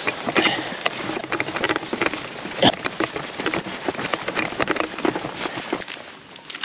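Fishing seat box frame and its tackle rattling and clattering with dense, irregular knocks as it is moved over a rough, muddy bank, dying down about six seconds in as it comes to a stop.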